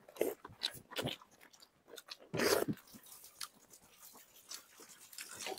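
Two people eating chicken curry and rice by hand: wet chewing and lip-smacking with irregular soft crunches as chicken is bitten off the bone, and one louder burst about two and a half seconds in.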